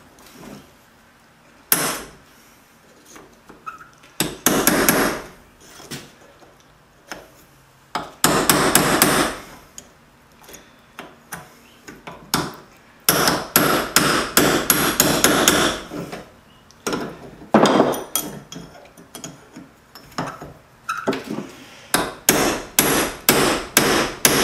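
Hammer blows on a steel punch driving a worn-out bearing out of a Cub Cadet mower deck spindle housing held in a vise. Runs of rapid blows come with pauses between them, then separate blows about two a second near the end. The bad bearing is coming out slowly.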